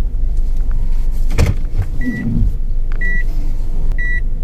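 Car cabin with the low rumble of the engine and tyres, a single thump about a second and a half in, then the car's warning beep, a short high tone repeating once a second.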